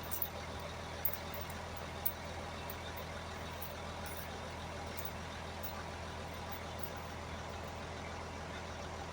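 Engine running steadily with a low, even hum, with a few light clicks in the first two seconds.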